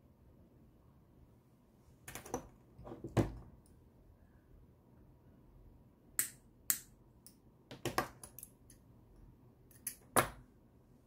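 Orthodontic pliers and wire cutter working a 0.8 mm lingual spring wire: about a dozen sharp metallic clicks and snaps in irregular clusters. The two loudest, around three seconds in and near the end, come with a dull knock.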